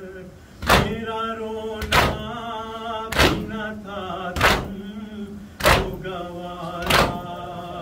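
Group matam: mourners striking their chests in unison, six loud thuds about once every second and a quarter, while a noha lament is sung between the strokes.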